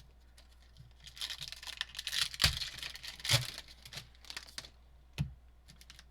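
Trading card packs and cards being handled: foil wrappers crinkling and tearing, with a few sharp clicks from cards and packaging.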